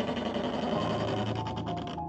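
Sound effect of a wooden nightstand drawer sliding slowly open: a rapid rattling scrape that cuts off suddenly at the end.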